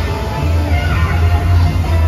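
Loud music with a heavy, pulsing bass.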